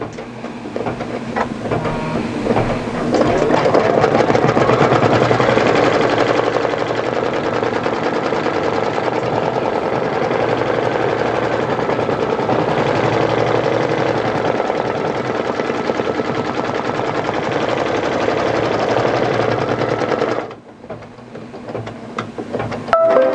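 Brother Luminaire XP2 computerized embroidery machine stitching: the needle clatters in a rapid, even rattle as it sews a tack-down line securing the fabric to the stabilizer. The stitching stops about 20 seconds in.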